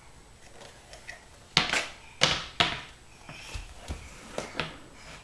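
Toy plastic dustpan and broom knocking on a hardwood floor: three sharp knocks about a second and a half in, then a few lighter taps.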